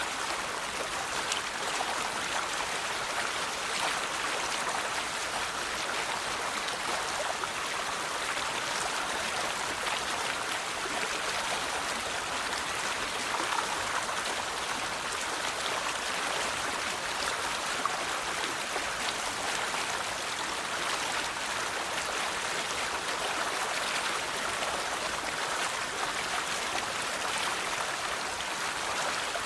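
A river flowing steadily over rocks: continuous rushing and babbling water with small splashes.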